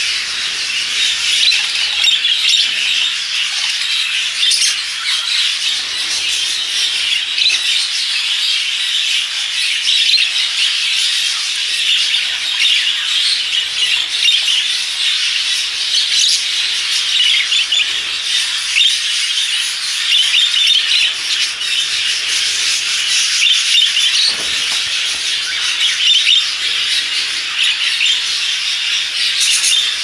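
A flock of English budgerigars chattering together: a dense, continuous, high-pitched twittering and warbling of many birds at once.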